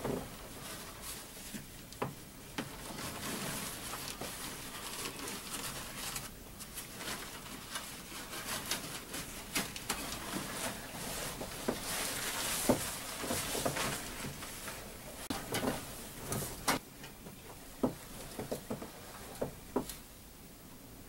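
Snow and wind in a blizzard: a steady hiss with irregular light taps and crackles scattered through it.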